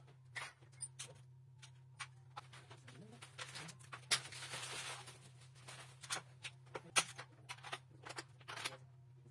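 Scattered light clicks and knocks of aluminum closet drawers and their runners being handled and fitted. A sharper knock about four seconds in is followed by a second or so of scraping.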